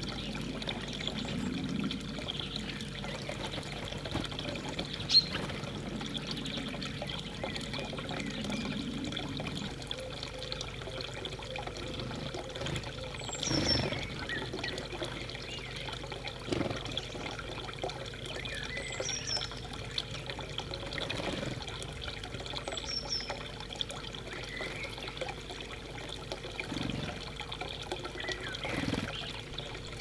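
Steady trickle of running water, with a few short, high, falling bird calls now and then and one sharp click about five seconds in.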